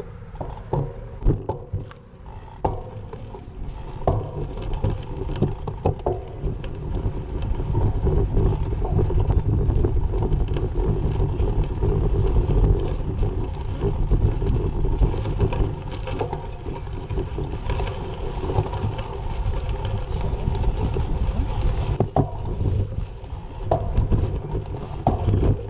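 Wind rumbling on the microphone of a bike-mounted camera while the bicycle rides over rough dirt and grass, with scattered knocks and rattles from the bumps. The rumble grows louder a few seconds in.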